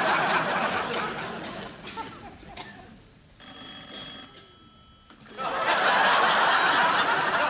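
Studio audience laughter fading away, then a telephone rings once, a short ring of about a second, about three and a half seconds in. The audience laughs again near the end.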